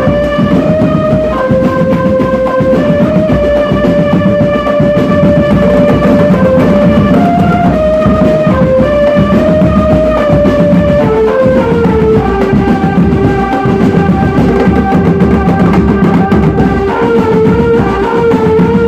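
A drum band playing: dense, continuous drumming under a melody of held notes that step up and down and drop lower about two thirds of the way through.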